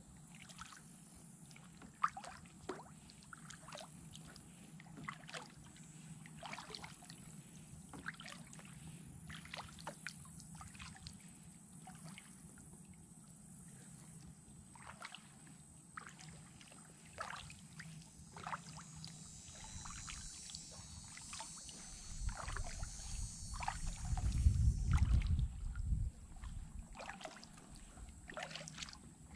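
Kayak paddling: the paddle blades dip and water splashes and drips off them in a steady stroke rhythm, about one stroke a second. A loud low rumble comes in for a few seconds near the end.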